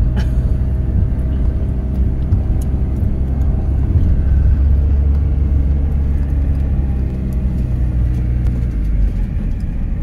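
Renault Master campervan driving along a winding road: a steady low engine and road rumble.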